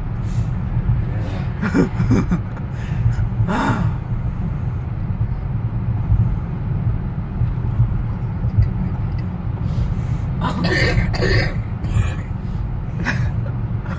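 Steady road rumble inside a moving car, with a woman's short sneezes breaking through, about four seconds in and again around eleven seconds in.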